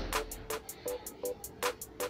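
Background music: an instrumental track with a steady beat of light clicks and short repeating mid-pitched notes over a fading deep bass note.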